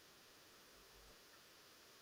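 Near silence: a faint steady hiss of background noise.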